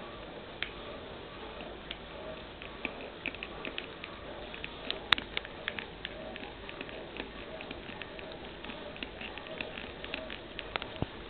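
A cat licking and lapping at the nozzle of a water bottle: a patter of irregular small wet clicks, with one louder click about five seconds in.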